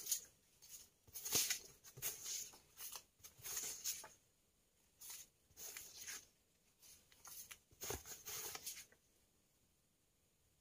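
A thick plastic sheet and photo prints being handled, rustling and crinkling in irregular bursts, stopping about nine seconds in.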